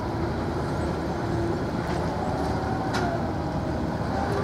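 Steady low engine rumble with a faint whine that shifts in pitch, and a single sharp click about three seconds in.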